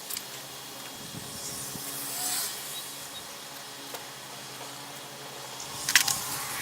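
Small workshop handling noises over a steady low hum: a soft rub about two seconds in, scattered light clicks, and a few sharp clicks near the end, as a small wooden peg is fitted into a glued cedar handle.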